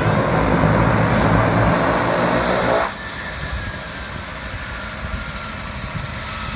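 Single-engine floatplane's engine and propeller running as it lands on the water, with a high whine that slowly falls in pitch. The engine sound drops sharply nearly three seconds in, then carries on more quietly.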